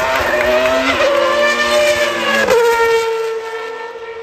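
Williams FW14B Formula 1 car's Renault V10 at high revs, climbing in pitch with upshifts about one second and two and a half seconds in, then holding a steady note as it fades away.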